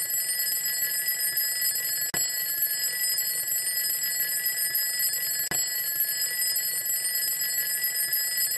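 Alarm clock ringing on and on in a steady high ring, broken for an instant twice, about two seconds and five and a half seconds in.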